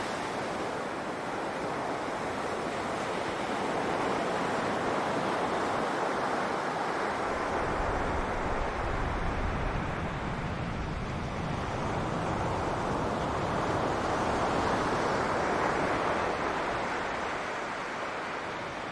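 Ocean surf washing onto a beach, swelling and easing in slow waves. Wind buffets the microphone with a low rumble through the middle.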